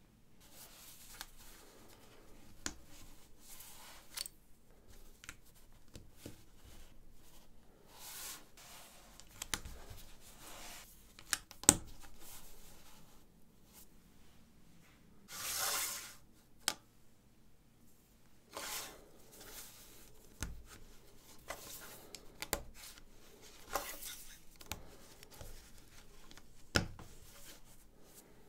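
LEGO 1x4 and 1x6 plates being handled and pressed together: irregular plastic clicks and snaps with soft rubbing between them, and a longer rustling swish about halfway through.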